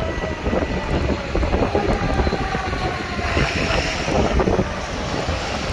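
Wind buffeting the microphone over steady city street traffic noise.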